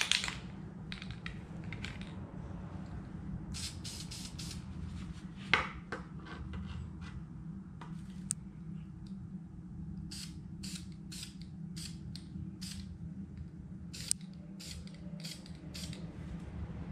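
Aerosol spray paint can sprayed in short bursts: a few early on, then a quick run of brief spritzes, about one every half second, through the last six seconds. A single sharp knock about five and a half seconds in, and a steady low hum underneath.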